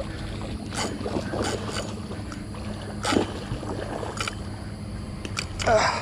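Water splashing and sloshing as a large hooked redtail catfish thrashes in the shallows, a string of short sharp splashes with a bigger one near the end.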